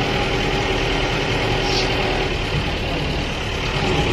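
Local bus engine running as the bus drives along, heard from inside the cabin: a steady engine hum over road noise.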